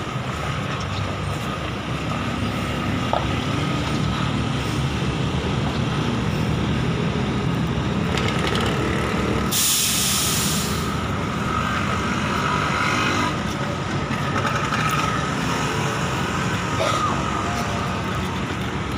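Diesel engine of an ALS intercity coach running steadily as it pulls in and stops. About ten seconds in comes a loud air-brake hiss of about a second and a half as the brakes are set.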